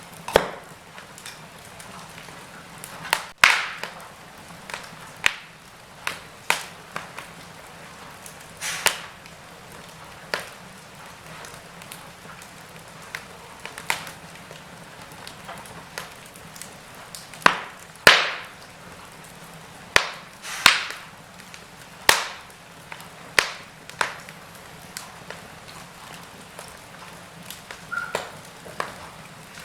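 Wood fire crackling in a fireplace: irregular sharp pops and snaps every second or two over a low steady hiss, some pops trailing off in a short hiss.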